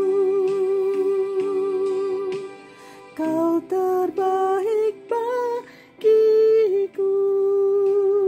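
A woman singing a slow Indonesian worship song. She holds long notes with vibrato, with a few shorter phrases in the middle.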